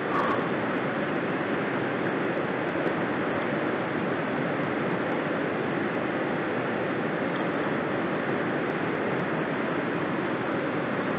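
Steady, muffled rush of river current heard through a submerged camera, with a few faint ticks.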